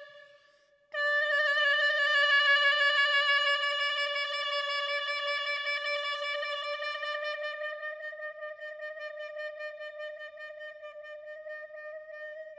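Clarinet mouthpiece and barrel played on their own, without the rest of the instrument, sounding one long held high note with a slightly wavering pitch. It starts about a second in and slowly fades.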